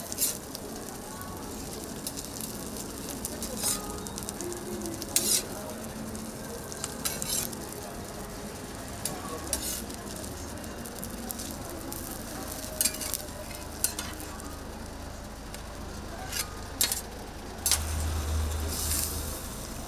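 Food frying on a flat griddle, sizzling steadily, with sharp metal clinks and scrapes every few seconds as the toast is worked.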